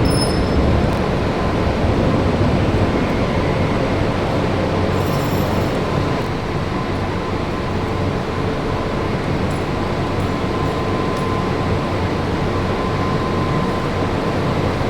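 Steady running machinery noise with a faint, even whine, with no clear strokes or pauses.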